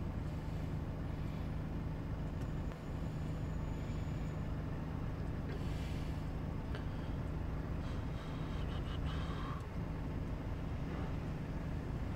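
Volkswagen Golf 6 2.0 TDI four-cylinder turbodiesel idling, a steady low hum with a constant drone.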